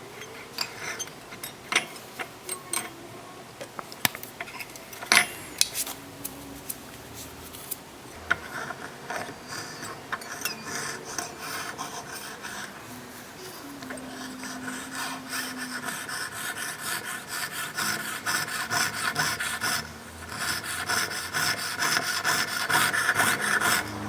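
Fine jeweller's saw cutting openwork into a 1.5 mm sheet of 18K gold. It starts with scattered light scrapes and ticks, then from about eight seconds in runs as a fast, steady series of short saw strokes, with a brief pause near twenty seconds.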